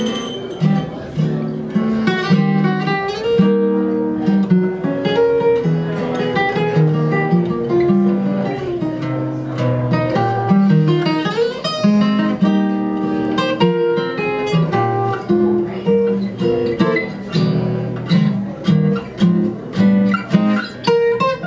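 Solo acoustic guitar played live: quick single-note melodic runs mixed with chords, turning to a run of short, rhythmic chord strokes near the end.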